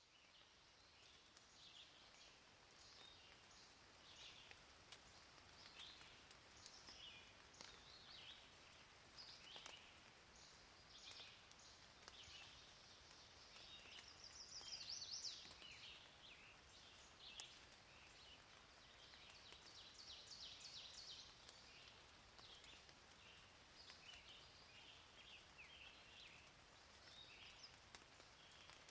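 Near silence, with faint bird chirps scattered throughout and a slightly louder quick trill about halfway through.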